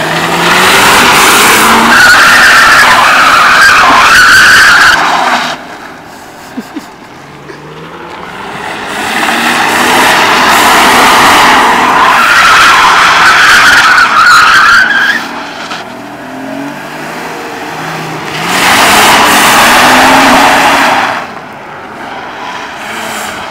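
BMW E36 3 Series sedan drifting: its tyres screech in three long passages of several seconds each, wavering in pitch, over the engine revving up and down, with quieter engine running in the gaps between slides.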